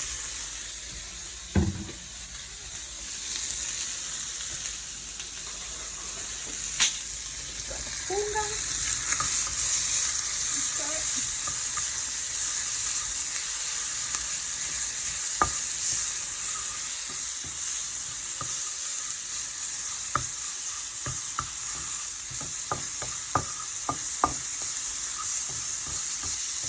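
Fish and onions sizzling in a frying pan with a steady hiss, while a utensil stirs them, clicking and scraping against the pan, more often in the second half.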